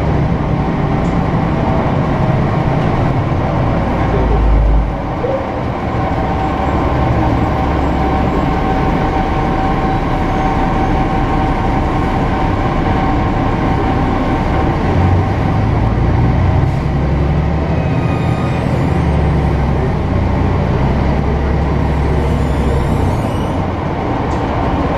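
City bus's diesel engine and drivetrain droning while the bus drives, heard from inside the passenger cabin with road rumble. The engine note drops briefly about five seconds in and climbs again from about fifteen seconds.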